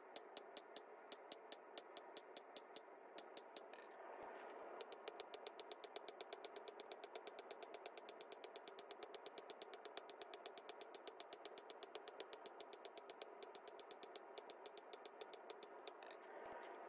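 Faint, fast, even hammering: a blacksmith's hammer striking a hot quarter-inch square steel bar on an anvil several times a second, drawing the bar down to a thin taper. The blows grow a little stronger about four seconds in.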